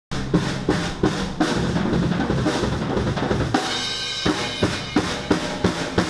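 Drum kit playing a steady rock beat of kick and snare hits, with pitched instruments sounding underneath. About halfway through, the low end drops away and higher tones come in.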